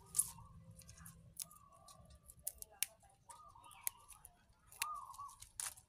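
Water spinach stems snapped and torn by hand, a scatter of sharp, irregular snaps at uneven intervals.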